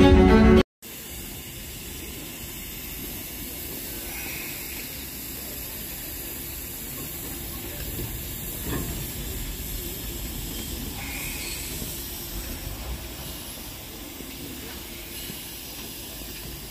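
Music cuts off under a second in, leaving a steady hiss of steam from narrow-gauge steam locomotives standing at the platform, with a few short louder puffs of steam.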